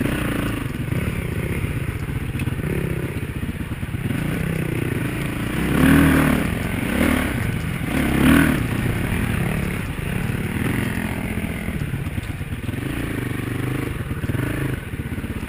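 Dirt bike engine running at low trail revs, with two short bursts of throttle about six and eight seconds in, and clattering and scraping as the bike goes over the rough, rooty track.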